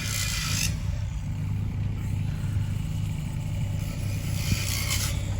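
An engine running steadily with a low hum. Brief rushes of hissing noise come near the start and again near the end.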